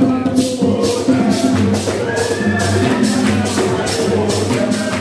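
Music with a steady beat: held bass notes and a melody line over a high rattling percussion stroke about three times a second.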